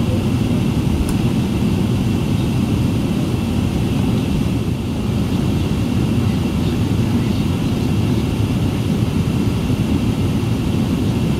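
Steady low rumble in the cabin of an Airbus A380 taxiing, with a faint steady high-pitched whine above it.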